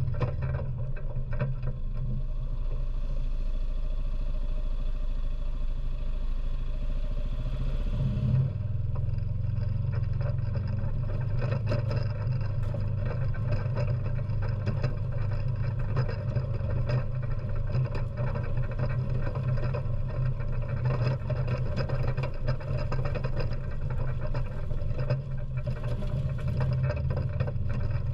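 ATV engine running steadily as it drives over rough, rutted ground. Its note changes about eight seconds in. After that, frequent knocks and rattles come through the front-mounted magnetic sweeper.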